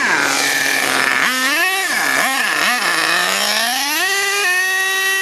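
HPI Savage X nitro RC monster truck's K5.9 engine at high, buzzy revs: the pitch swoops down and up several times on the throttle, then climbs steadily and holds high near the end.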